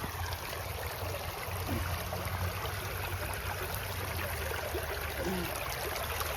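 Creek water running steadily, an even rushing hiss with a low steady rumble beneath it.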